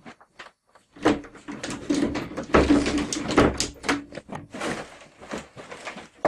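Rummaging in a closet: rustling and knocking as things are moved about, starting about a second in, with a low tone that comes and goes.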